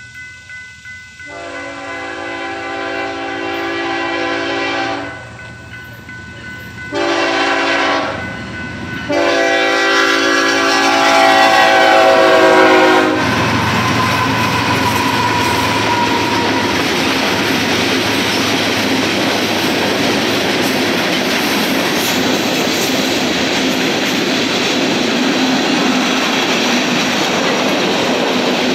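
Freight locomotive horn sounding for a grade crossing: a long blast, a short one, then a long one, several notes sounding together as a chord. Then the BNSF locomotives and a string of tank cars pass close by with a steady rumble and clatter of wheels on rail.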